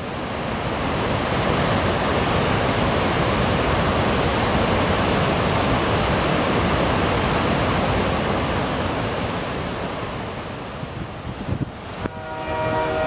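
Creek waterfall pouring over a low dam in a steady, loud rush of water. A brief chord of steady tones comes in near the end.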